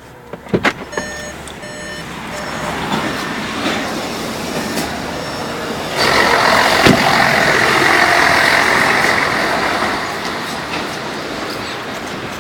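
A few sharp clicks and a short run of high beeps, then road traffic noise that swells, with a vehicle passing loudly from about six seconds in and fading after about four seconds.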